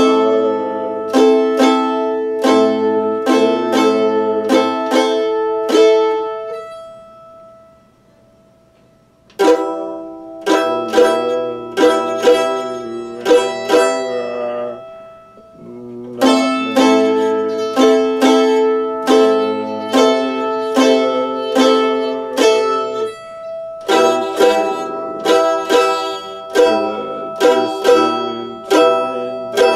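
Mandolin being played in phrases of picked notes that ring and decay, dying away for a couple of seconds about seven seconds in and pausing briefly around fifteen seconds.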